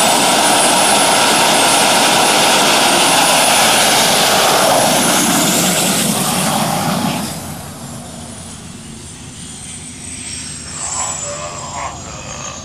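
Turbine engine of a jet-powered dragster van: a loud roar with a steady high whine that drops off sharply about seven seconds in. The whine then fades and slowly falls in pitch.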